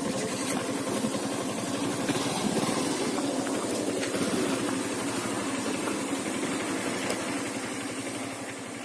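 Motorcycle engine running steadily, fading down near the end.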